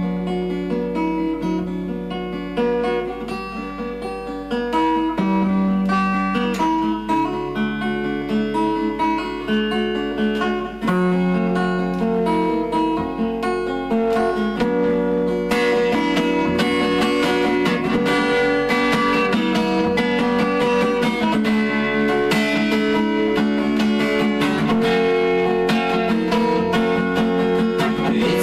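Acoustic guitar playing an instrumental intro: separate picked notes at first, turning to fuller, denser playing with strumming about halfway through.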